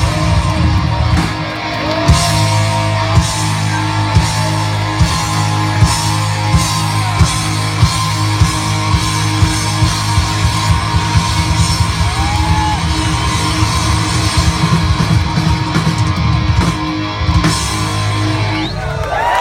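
Live rock band playing an instrumental stretch with electric guitar, bass and a steady drum beat, stopping near the end as the crowd begins to cheer.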